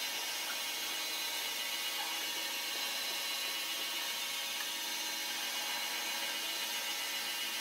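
Metal lathe running steadily while its cutting tool turns the end of a metal shaft, peeling off a curling chip: an even machine whir with constant motor and gear tones over a hiss.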